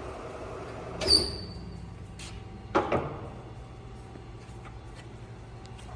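Mazak Hercules Ajax manual lathe running slowly with a steady low hum. About a second in comes a sharp metallic clank with a brief high ring, and two more clunks follow just under three seconds in: metal-on-metal handling at the headstock during a spindle speed change.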